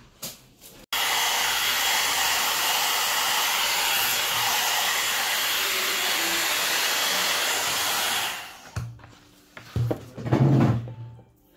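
3-in-1 hot air brush (hair dryer brush) running steadily with a blowing rush as it is drawn through hair. It cuts in abruptly about a second in and winds down about eight seconds in, followed by a few short, louder sounds near the end.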